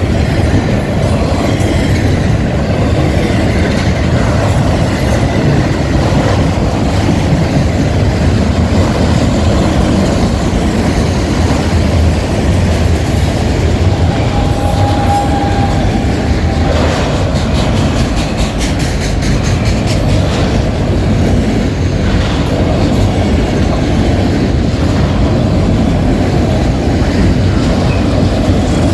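Freight train cars rolling past close by: a steady rumble of steel wheels on rail, with clicking as the wheels pass over rail joints. A brief high wheel squeal comes about halfway through.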